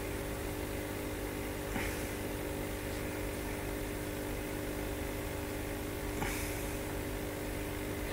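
Steady mechanical hum of an aquarium pump, with two short rushing noises, about two seconds in and again about six seconds in.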